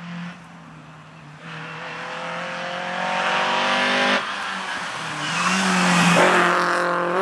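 Rally car approaching hard, its engine note climbing steadily, dropping abruptly about four seconds in, then rising again and loudest as the car passes close by near the end.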